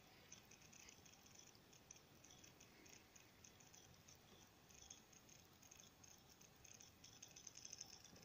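Near silence with faint, irregular crackling and rustling, a little denser near the end: handling noise of the recording phone as it is moved over the netbook.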